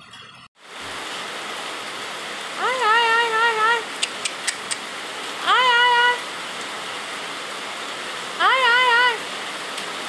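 Steady heavy monsoon rain. Three times, a short pitched call rises and then wavers over it, and a few sharp clicks come about four seconds in.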